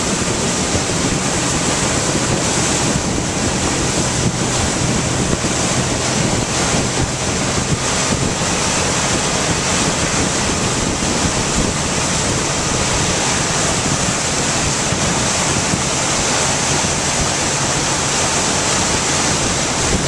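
Steady rush of a motorboat's churning wake at towing speed, with wind buffeting the microphone and a low, even engine hum underneath.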